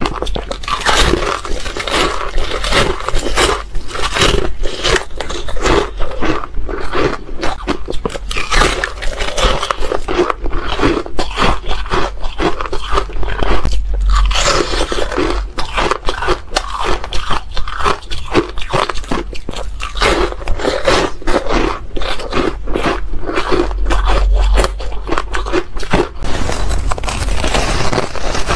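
Soft crunchy ice being bitten and chewed: a dense run of irregular crunches with some scraping, many in quick succession.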